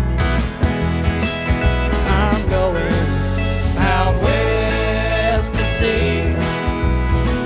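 Live country band playing an instrumental jam passage, with a steady bass line under a bending lead melody.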